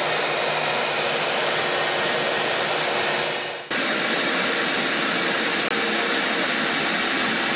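Router motor on a CNC machine running steadily at speed, with a drill bit cutting into a polystyrene foam block; a steady hiss with a faint high whine. The sound dips for a moment about three and a half seconds in, then carries on.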